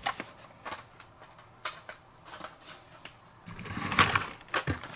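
Die-cast toy cars in plastic blister packs on cardboard backing being handled, with a few light clicks and taps. About three and a half seconds in comes a louder rustling scrape as cards are slid out of a corrugated cardboard case.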